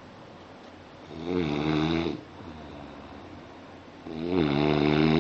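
A person snoring in a steady rhythm: two snores about three seconds apart, each lasting about a second, the second one louder.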